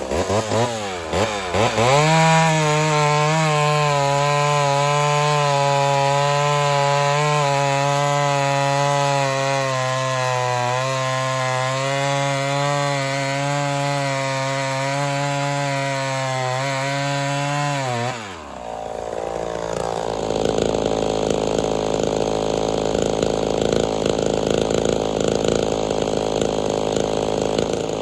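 Homelite Super XL Auto two-stroke chainsaw revved a few times, then held at full throttle cutting through a firewood round for about sixteen seconds, its pitch wavering slightly under load; it runs on a chain that is loose and dulled from touching the ground. About eighteen seconds in the throttle is let off and the saw drops back to a lower idle.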